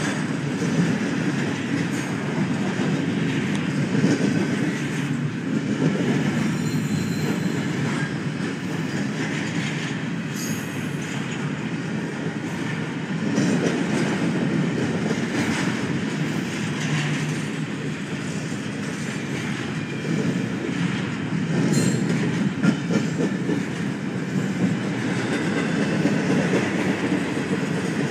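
Freight train's intermodal well cars rolling past at a steady pace: a continuous rumble of steel wheels on rail that swells and eases every few seconds, with clatter over the rail joints. There are a few faint, brief, high wheel squeals.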